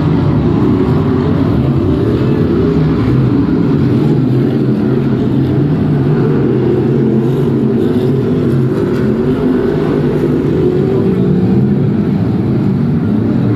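A pack of BriSCA F1 stock cars racing, their V8 engines running together in one loud, steady drone whose pitch wavers up and down as the cars lap the oval.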